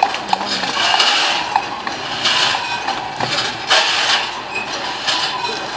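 The Man Engine, a giant mechanical puppet, hissing in repeated surges of steam or smoke about once a second as it moves, with scattered metallic clicks and clanks from its mechanism.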